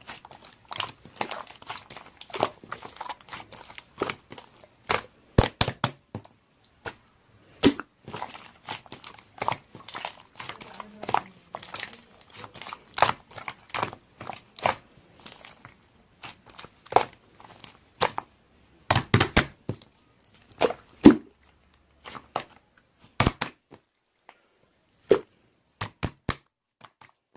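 Pink slime squished and pressed by hand, making irregular sticky clicks and pops, some of them sharp and loud, growing sparser and stopping near the end.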